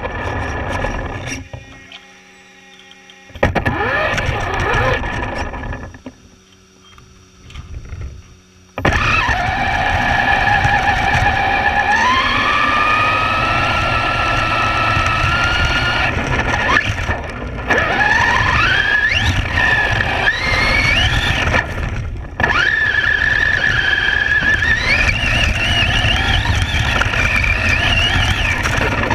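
Traxxas Slash electric RC truck driving, heard from a camera mounted on the chassis: the motor's whine rises and falls in pitch with the throttle over a loud rushing noise. It is quieter for the first several seconds, then loud from about nine seconds in.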